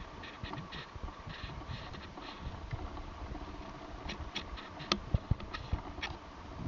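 A cat scrabbling and pattering, with light scratching taps throughout and a few sharp knocks and thumps, loudest about five seconds in.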